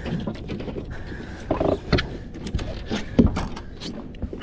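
Handling noise from a fish lip-grip tool worked against a fiberglass boat's gunwale: irregular knocks and clicks, a few every second.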